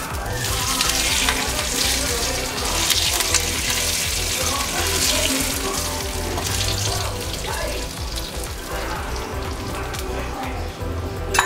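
Hot oil tempering of mustard seeds, shallots and curry leaves sizzling as it is poured onto a chicken curry. The sizzle is loudest for the first several seconds, then dies down, with a single knock near the end.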